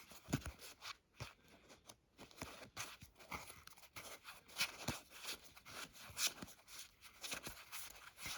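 Final Fantasy trading cards and their packaging being handled: irregular soft clicks, crinkles and rustles as cards are shuffled through and wrappers moved.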